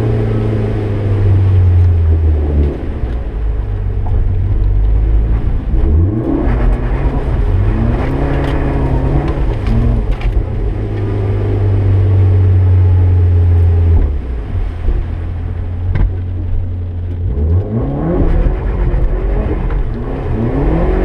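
Turbocharged 4G63 four-cylinder of a rear-wheel-drive Mitsubishi Eclipse GSX heard from inside the cabin, revving up and down again and again as the car is drifted, with the revs held for a few seconds in the middle. A sharp click comes about 16 seconds in.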